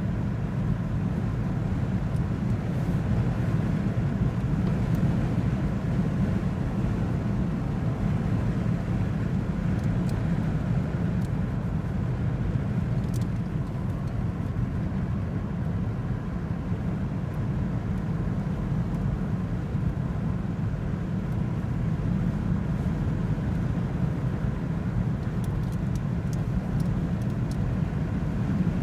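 An engine running steadily with a low, even rumble, with a few faint ticks over it.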